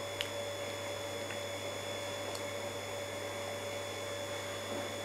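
Steady electrical hum with a thin high whine over it, and a few faint clicks, the clearest just after the start.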